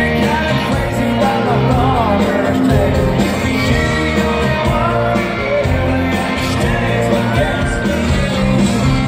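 Live country band playing loudly, with a man singing over electric guitars, drums and fiddle, heard from the crowd in an arena.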